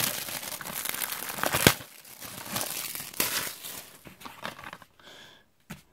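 Plastic shrink wrap crinkling and tearing as it is peeled off a DVD case. The crinkling is dense in the first two seconds, with a sharp crackle just before the two-second mark, then thins to a few scattered crinkles and goes nearly quiet.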